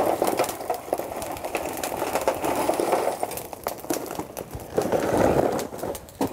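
Lumpwood charcoal clattering and rattling as it is tipped onto hot coals in a small barbecue grate, in several pours.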